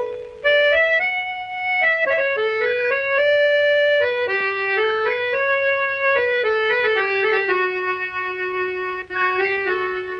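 Instrumental music: a slow melody of held notes stepping up and down, with no singing.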